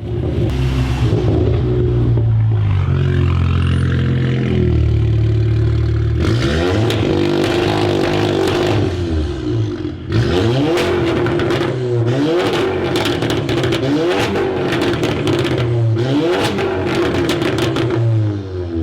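Volkswagen Golf R's turbocharged four-cylinder exhaust: it runs steadily, then is revved up and down several times, with rapid crackles and pops as the revs fall. This is the 'wet fart' exhaust note.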